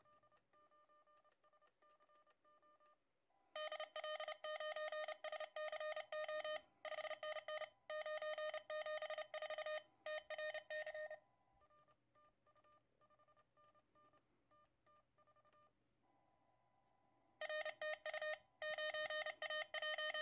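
Morse code (CW) tones from a QRP Labs QCX+ transceiver through a small attached speaker. Faint incoming Morse from another station at the start and again in the middle alternates with loud keyed sending from the Morse paddle, in a back-and-forth contest exchange.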